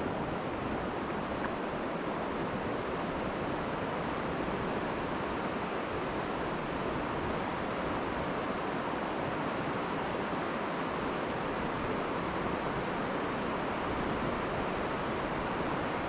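River water flowing, an even, steady hiss with no change in level.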